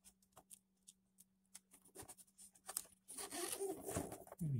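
Hands working a vinyl decal sticker onto a toddler bed's headboard: scattered small clicks and taps of fingers on the board and sticker, turning into a steadier rustling rub from about three seconds in as the sticker is smoothed down.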